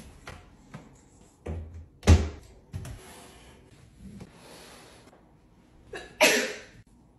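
Household handling knocks with a kitchen cabinet door bumped shut in a loud, low thump about two seconds in. Near the end comes a short, loud rush of fabric as blankets and cushions are moved on a leather couch.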